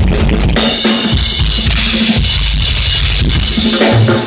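Rock drum kit played in a live solo: heavy bass drum and tom strokes, then from about half a second in a wash of crashing cymbals that lasts some three seconds, with the drums coming back near the end.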